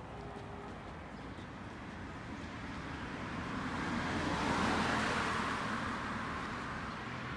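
A car driving past on the road, its noise building to a peak about halfway through and then easing off as it moves away.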